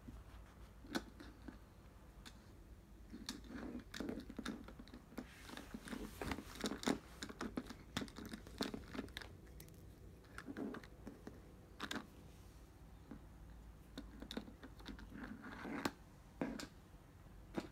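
Irregular taps, clicks and short rustles of a Norwegian Forest Cat's paws on a wooden floor as it bats at and noses a plush toy mouse, busiest in the middle.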